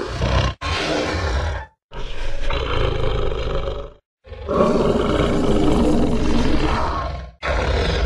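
Spinosaurus roar sound effect: a run of deep roars, about a second to three seconds each, split by short silent gaps, with the longest in the second half.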